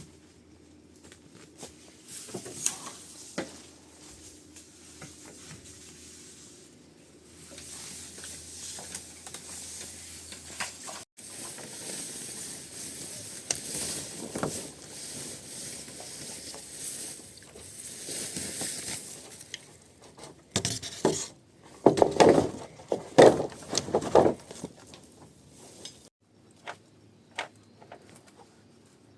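Cooking sounds: a steady sizzling hiss for several seconds, then a run of sharp knocks and clatter like utensils against a pot.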